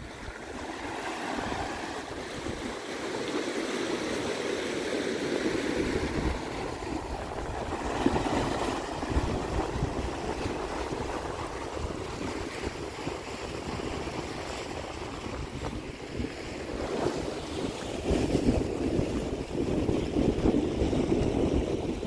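Ocean surf breaking and washing over rocks and sand, rising and falling in swells that are loudest about eight seconds in and near the end. Wind buffets the microphone, adding an irregular low rumble.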